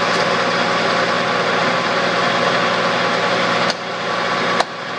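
Clausing Colchester 13" gearhead lathe running at 770 RPM, a steady hum of gears with a hiss over it. About three and a half seconds in the sound drops sharply with a click, and there is another click about a second later.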